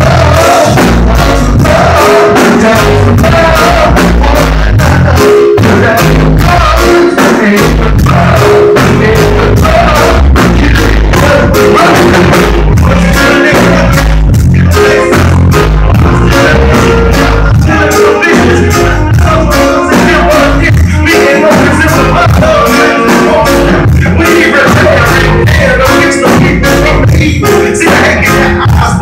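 Live reggae band playing loudly: electric bass, guitar and drum kit with a voice singing over them.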